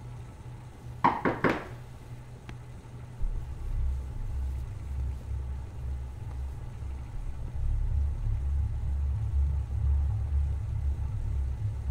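Three quick knocks on a wooden door, about a second in. A low, pulsing rumble starts about three seconds in and carries on.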